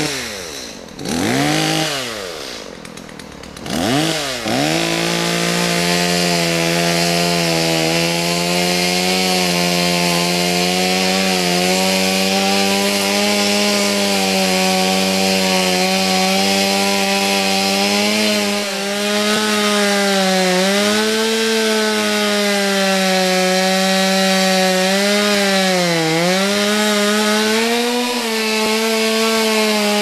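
Chainsaw revved in a few quick blips, then held at high revs from about four seconds in as it cuts into a fallen alder trunk. Its pitch dips twice as the cut loads it.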